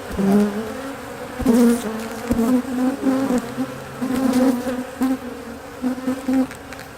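A swarm of honeybees buzzing around an opened hive, a dense hum that wavers in pitch, with a few brief knocks. The bees are stirred up because the top of their hive has been taken off.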